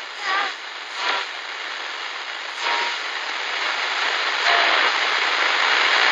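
A hissing, static-like noise under the station logos, slowly swelling. Short pitched blips come in about a third of a second in, about a second in, and near three seconds.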